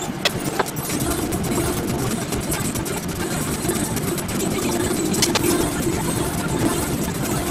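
A steady low motor hum, with a few faint clicks about a second in and again around five seconds in.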